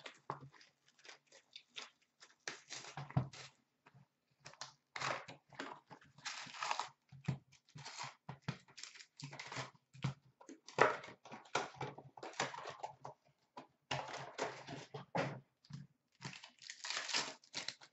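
Cardboard Fleer Showcase hockey card box being torn open and its foil card packs rustling and crinkling as they are handled, in a run of irregular rustles and tears with short gaps.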